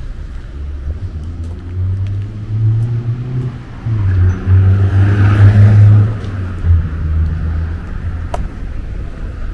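A motor vehicle drives past close by and accelerates, its engine rising in pitch. The engine drops back briefly about four seconds in, rises again and is loudest a second or two later, then fades.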